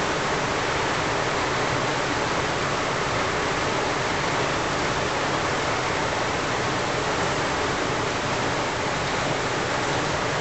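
Steady, even rushing hiss with no distinct events in it.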